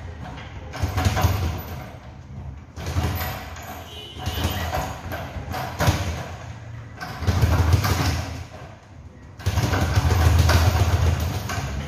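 Flurries of gloved punches on a double-end bag, rapid thuds coming in bursts of about a second with short pauses between combinations.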